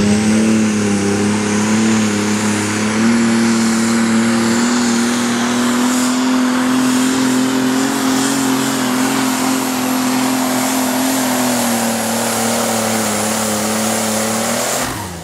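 Limited Super Stock pulling tractor's turbocharged diesel engine running flat out under load against the brake sled, one steady loud note with a high whine above it. The pitch eases down slightly near the end, then the engine note drops off suddenly as the throttle comes off at the end of the pull.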